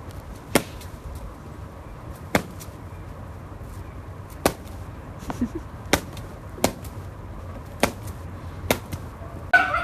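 A series of about seven sharp taps or knocks, spaced one to two seconds apart over a steady low background noise, with a short pitched sound near the end.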